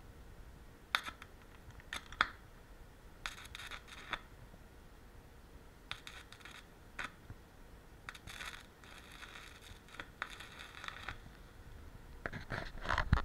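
Stick (arc) welder laying short tack welds: the electrode arc crackles and hisses in a string of separate bursts, some brief and one lasting a few seconds. A sharp knock comes near the end.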